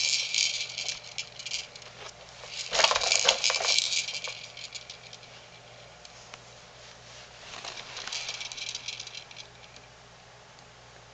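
Rattling and jingling of a baby jumper's tray toys, most likely the beads in the clear spinner dome, as the baby jostles and bounces. It comes in three bursts, the loudest about three seconds in, and dies away near the end.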